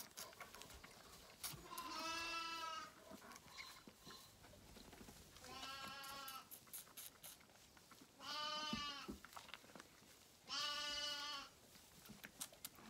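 Young Zwartbles lamb bleating four times, each call just under a second long and a few seconds apart.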